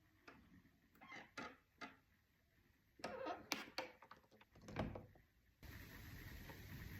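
A door being quietly opened: a series of faint clicks and knocks from the handle and door over the first five seconds. A steady faint hiss sets in suddenly about five and a half seconds in.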